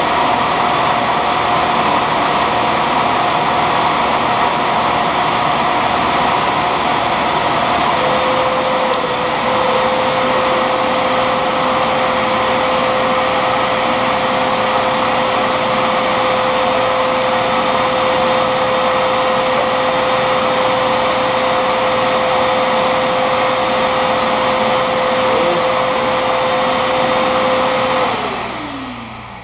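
Shop vacuum running steadily with a whine that settles lower in pitch about eight seconds in, then switched off near the end and winding down with a falling pitch.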